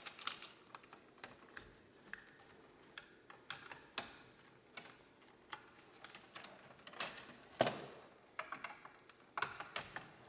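Faint, scattered plastic clicks and knocks of a Siemens circuit breaker being worked loose and pulled from a panel's bus by a gloved hand and screwdriver, with one sharper click about seven and a half seconds in.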